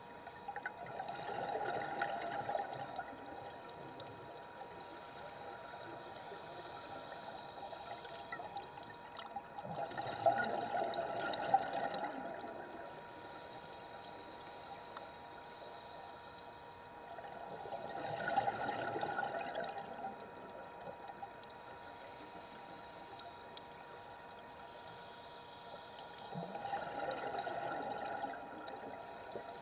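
Scuba regulator exhaust bubbles as a diver breathes out underwater: four bursts of bubbling, each two to three seconds long and about eight seconds apart, with quieter gaps in between. A faint steady tone runs underneath.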